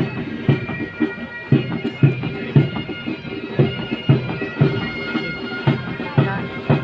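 Military pipe band playing a march: bagpipes with their steady drone, over a regular drum beat about twice a second.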